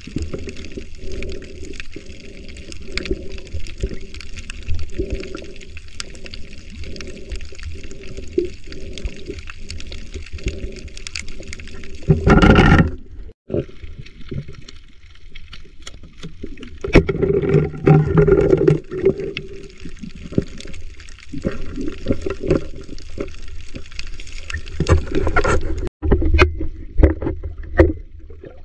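Muffled water noise picked up by a camera in an underwater housing as a spearfisher swims over seagrass: a steady sloshing with a regular pulse about one and a half times a second, and louder rushing surges about halfway through and again near the end.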